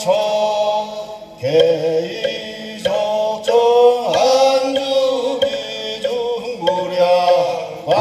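Korean Buddhist chant, sung in long held notes that slide between pitches, with a few sharp percussion knocks.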